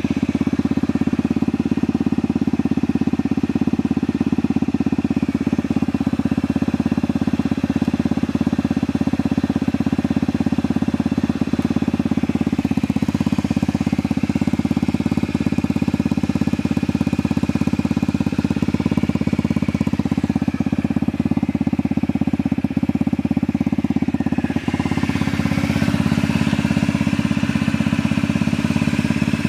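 Honda Zoomer FI scooter's small four-stroke single-cylinder engine idling steadily after start-up, running with an abnormal noise.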